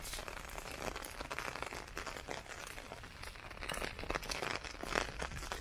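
Heavy rain falling, a dense, irregular patter of many close drop impacts.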